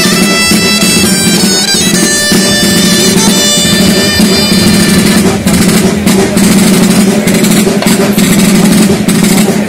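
Dolçaina (Valencian shawm) playing a folk dance tune over a tabal drum. About halfway through the high reedy melody grows faint and the drum beat stands out.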